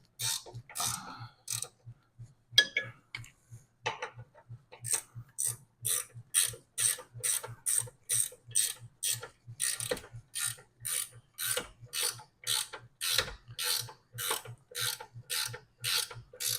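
Ratchet wrench clicking as a brake caliper bolt is tightened. After a few scattered clicks, a steady run of about two to three clicks a second.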